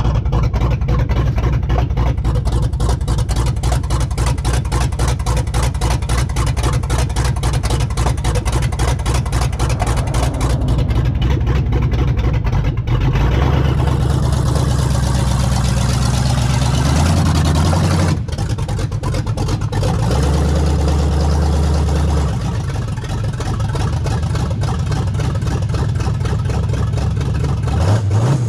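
383 stroker small-block V8 with a big cam running with a choppy, pulsing idle, its engine note stepping up and down several times in the second half as the van is driven off.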